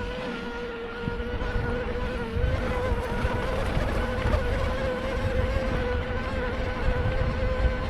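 Bicycle being ridden through deep sand: a low rumble of tyres and wind on the microphone, under a steady whine.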